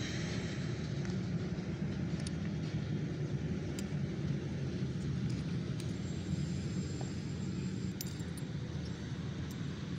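A steady low rumble, with a few faint light clicks as coins are handled.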